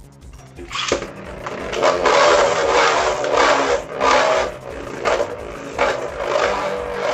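Beyblade spinning tops launched into a stadium with a sharp hit about a second in, then grinding and scraping as they spin, clashing with sharp hits every second or so.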